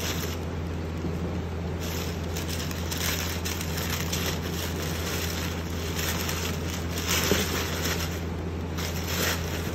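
White tissue-paper packing rustling and crinkling in several bursts as hands dig a boot out of its shoebox, over a steady low hum.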